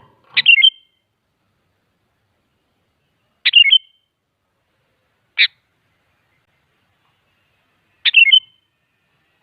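Sooty-headed bulbul (kutilang) calling: short, quick phrases of a few bright chirpy notes, three times a few seconds apart, with a single short note between the second and third.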